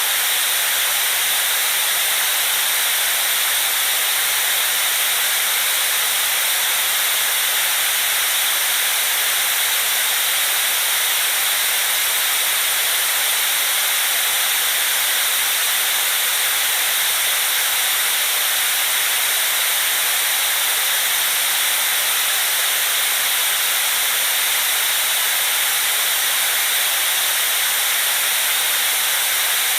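Steady white noise: an even, unchanging hiss, bright and high-pitched with little low rumble.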